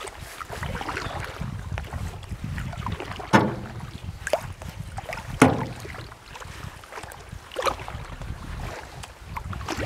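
Paddle strokes in calm water: the blades dip and drip, with a few sharper splashes or knocks, the strongest about a third and halfway in. Low wind rumble on the microphone runs underneath.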